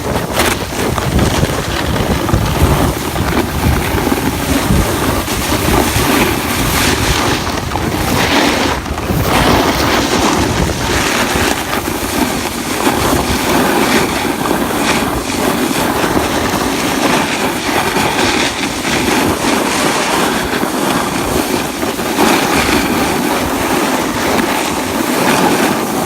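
Wind rushing over the microphone, with a snowboard sliding and carving on the snow during a run: a steady loud rushing that swells and eases with the turns.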